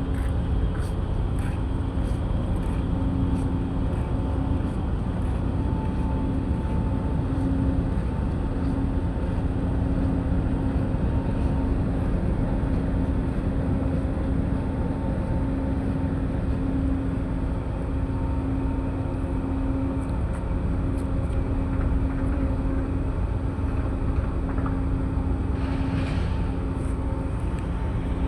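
Ship's engine running steadily: a constant low drone with a steady hum. Near the end there is a brief hiss.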